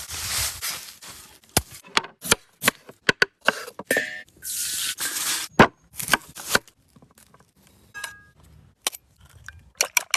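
Plastic packaging rustling and tearing, with many sharp clicks and taps of containers and lids being handled.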